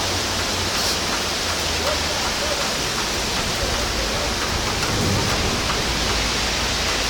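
Heavy rain mixed with hail falling, a steady dense hiss with a few faint ticks in it.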